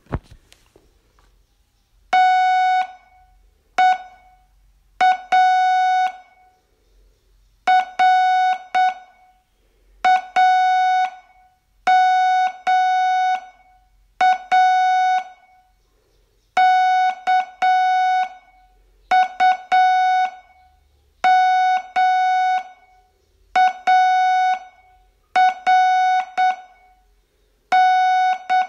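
Morse code sent as a keyed audio tone: one steady beep pitch switched on and off in dots and dashes. It comes in short groups of about a second each, with pauses of about a second between them.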